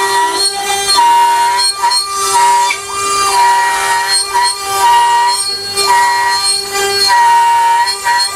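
Home-built CNC router (a rebuilt Ooznest Ox) cutting 18 mm plywood: a steady spindle whine runs under the singing of its stepper motors. The stepper whine holds a pitch, breaks off and restarts at a new pitch every second or so as the machine changes direction along the toolpath, over the hiss of the bit cutting the wood.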